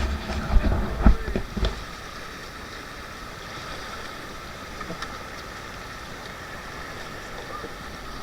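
A few short shouts in the first second or two, then the steady rush of river water around a raft.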